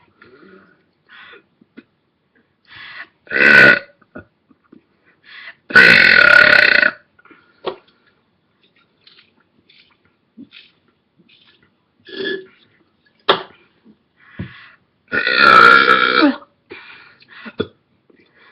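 A person belching deliberately: a short loud belch about three seconds in, then two long drawn-out belches, one around six seconds and one near the end, with small quieter sounds between them.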